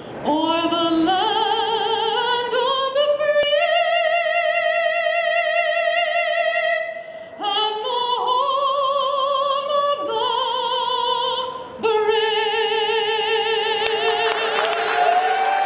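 A woman sings in operatic style into a microphone, with long held notes and strong vibrato that step up and down in pitch. Applause begins near the end.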